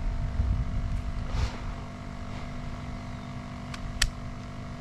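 Wind buffeting the microphone in gusts over a steady low hum, with a single sharp click about four seconds in.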